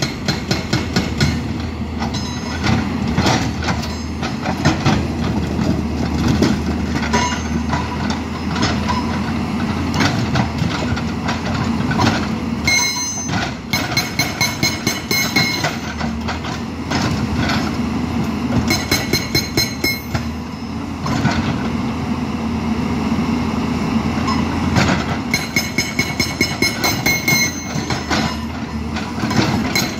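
Dozco 2200A hydraulic breaker on a Tata Hitachi excavator hammering rock: a rapid, continuous run of metallic chisel blows, several a second, over the excavator's diesel engine running steadily.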